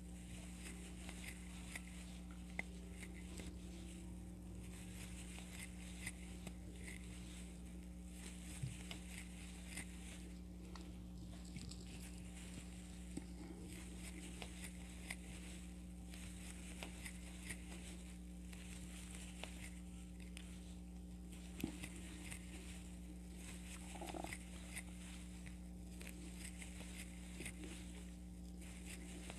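Faint rustling and light clicks of a crochet hook working yarn, one stitch into each stitch, over a steady low electrical hum.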